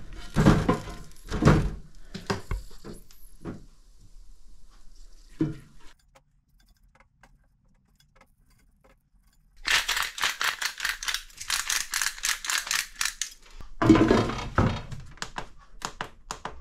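Metal tongs clattering against corn cobs and an air fryer's non-stick drawer as the cobs are turned over. A quiet gap follows, then a few seconds of rapid rattling and a loud thunk about fourteen seconds in. Quick clicks near the end come from the fryer's control buttons being pressed.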